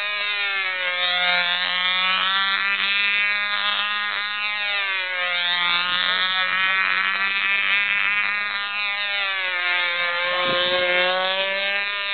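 Control-line model airplane's small engine running in flight, a high whine whose pitch rises and falls over and over as the plane circles on its lines.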